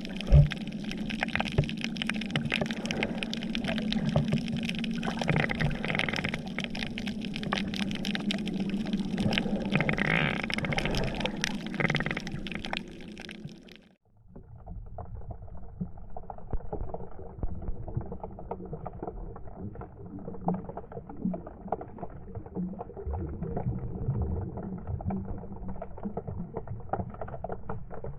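Water sloshing and splashing on an action camera at the water's surface. About halfway through it fades out and comes back muffled, with only the low end left and faint crackling, the sound of the camera underwater.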